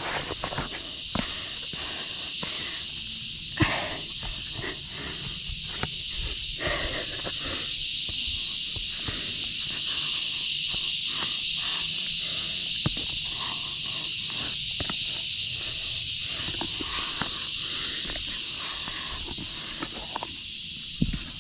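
Hands and shoes scuffing and tapping on bare rock during a scrambling downclimb, with a sharper knock a few seconds in. A steady high hiss runs behind and swells around the middle.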